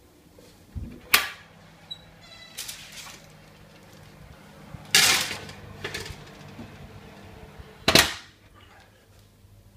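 Oven door opened, a foil-lined metal baking tray knocked and slid onto the oven rack with clatters and rattles, then the door shut with a bang. The three loudest knocks come about a second in, about five seconds in and about eight seconds in.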